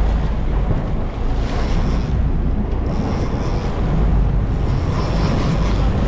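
Wind buffeting the microphone with a steady low rumble, over the wash of waves and water along the hull of a moving sportfishing boat.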